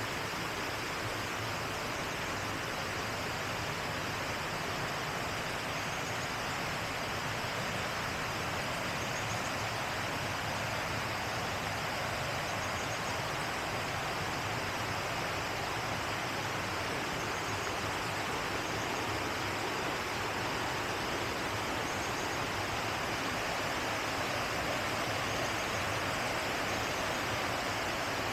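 River water rushing steadily, an even, unbroken hiss.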